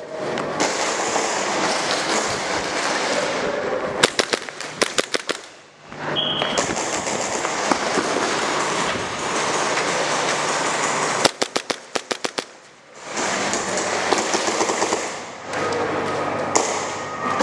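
Airsoft pistols firing two rapid strings of shots, about four seconds in and again near twelve seconds, over a steady background noise.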